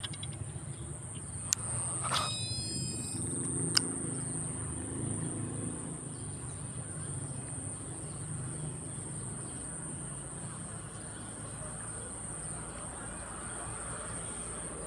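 Steady high-pitched insect drone, like crickets or cicadas, over a low background rumble, with two sharp clicks and a brief chirp in the first four seconds.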